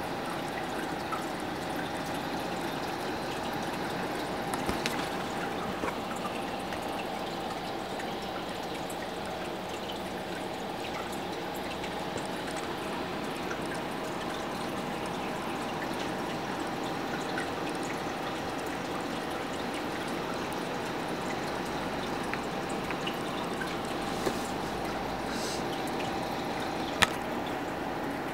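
Aquarium water trickling and splashing steadily, as water circulates in the tank, under a faint steady hum. A few small clicks, and one sharper click near the end.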